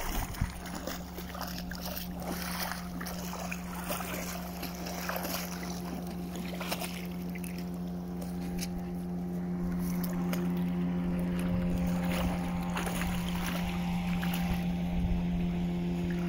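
A dog splashing in the water, with irregular splashes mostly in the first half. Under it a steady motor drone holds one pitch and slowly grows a little louder.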